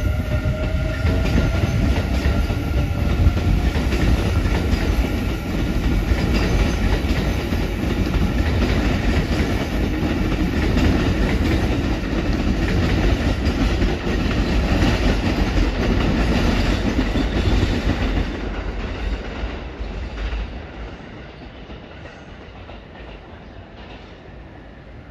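Electric train running past close by over the tracks and points, with steady rumbling and clatter of wheels on rails. The sound fades away from about 18 seconds in as the train moves off.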